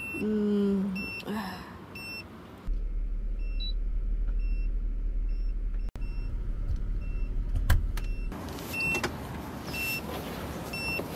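A vehicle's electronic warning chime, low tyre pressure, beeping repeatedly with short high beeps. A steady low hum runs under it for several seconds in the middle.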